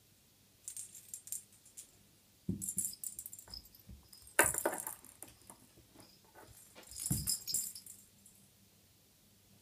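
A cat batting its toys about: a jingling rattle in four short bouts, the loudest about halfway in, starting with a sharp knock.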